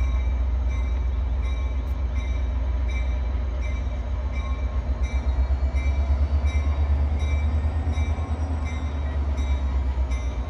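EMD F40PH-2 diesel locomotive approaching slowly, its engine giving a heavy, steady low rumble that pulses harder from about halfway through. Above it, a high ringing repeats about three times a second.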